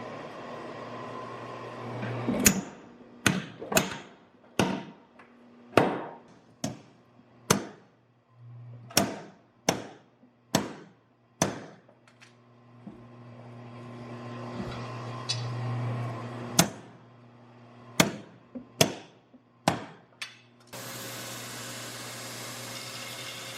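Separate hammer blows on steel on an anvil, forging the cheeks of a rounding hammer head. The strikes come unevenly, about half a second to a second apart, each with a short ring. A steady hiss takes over near the end.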